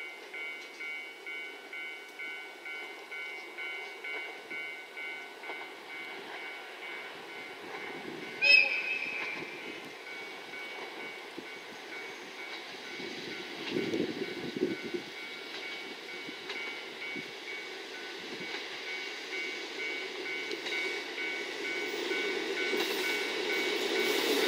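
JR Hokkaido KiHa 40 diesel railcar approaching, its engine and wheels growing steadily louder toward the end, with one short horn blast about eight seconds in. A ringing warning bell pulses about twice a second through the first several seconds.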